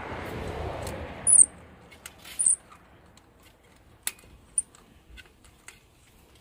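Hand tools working in a motorcycle's spark plug hole: scattered light metal clicks and two short, high squeaks as the thread tap and cutter are handled. A brief rush of noise comes first.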